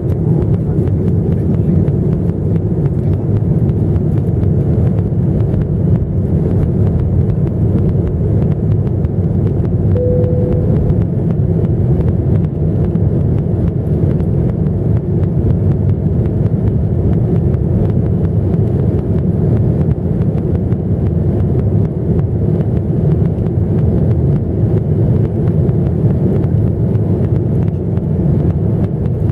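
Steady, loud, low rumble of wind buffeting the microphone, with a brief faint tone about ten seconds in.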